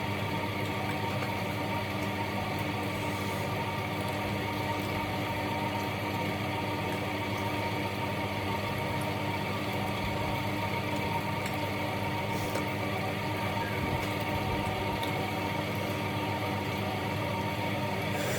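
A steady, unchanging low machine hum with several even tones above it.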